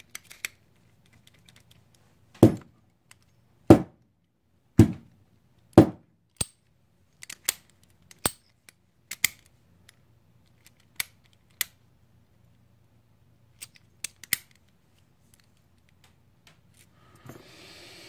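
Brass padlock being handled and worked with lock picks: four sharp metallic knocks about a second apart in the first few seconds, then lighter, scattered clicks of the tools in the lock.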